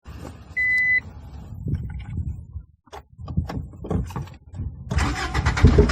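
A short electronic beep, some clicks and knocks, then about five seconds in the 1991 Acura Integra's 1.8-litre four-cylinder engine starts up and runs unevenly, the rough idle that is the car's fault.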